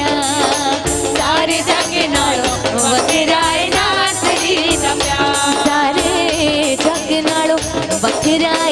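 Live worship song: a woman sings lead through a microphone with a backing chorus, over a hand drum and a steady percussion beat.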